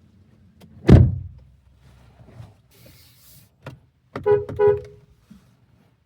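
A car door shutting with a heavy thump about a second in, then a brief rustle and two short beeps close together a little after four seconds.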